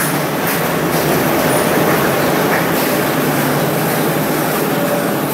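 Diesel train standing at the platform with its engine running steadily, a loud, even rumble with a low hum.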